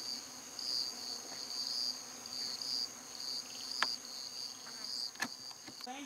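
Insects singing outdoors: a steady, high-pitched shrill that pulses in loudness, with two faint clicks near the end.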